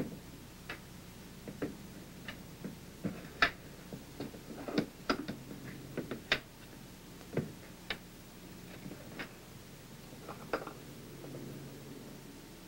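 Metal tie-down rings on the cabin floor fittings clicking and clinking at irregular intervals as they are turned down by hand to lie flat, over a faint steady low hum.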